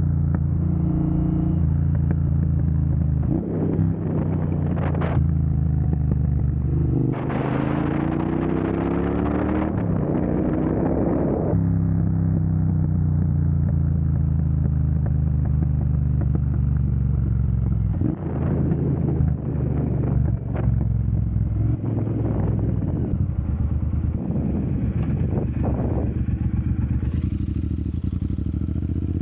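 Triumph Bonneville Speedmaster's 1200 cc parallel-twin running through a Dr. Jekill & Mr. Hyde electronically adjustable exhaust. It idles steadily, with one longer rev that climbs and falls back about a quarter of the way in and several short throttle blips later on.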